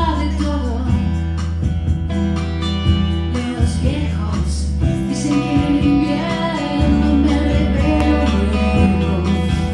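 Live band music with guitar over a steady bass line, an instrumental passage of the song.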